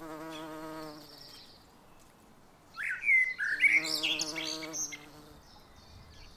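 A black bee's wings buzzing as it hovers at the flowers. The wavering flight hum sounds twice: for about a second at the start, then again for about two seconds from the middle. Songbirds chirp loudly over the second buzz.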